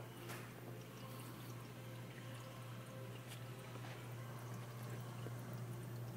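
Aquarium equipment running: a steady low hum with faint trickling and dripping of water and a few small ticks.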